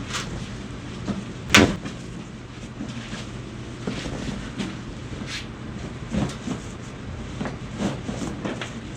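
Chiropractic spinal adjustment: a series of light knocks, creaks and handling sounds of the body being worked on the treatment table, with one loud, sharp crack about a second and a half in, over a steady low hum.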